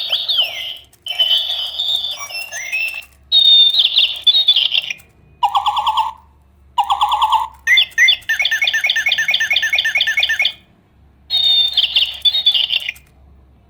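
Electronic toy bird's sound chip playing synthetic bird chirps and trills in a series of short bursts with brief pauses between them, including one fast, even trill of about seven notes a second.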